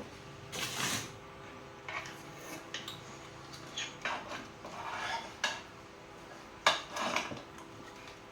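Small metal tools and parts clinking and scraping as they are handled, in a scattered series of short knocks and scrapes, the loudest about two-thirds of the way through.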